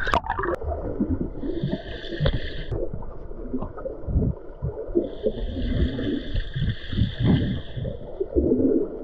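Water gurgling and sloshing close to the microphone, with irregular splashy bursts. A steady high tone sounds twice over it: briefly about a second and a half in, then for about three seconds from the middle.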